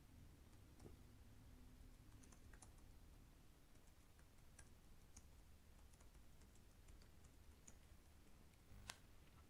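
Faint keystrokes on a computer keyboard as a short line of text is typed, with one sharper, louder click shortly before the end.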